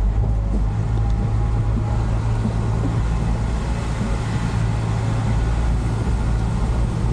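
Truck engine running steadily at low speed, a constant low hum heard from inside the cab.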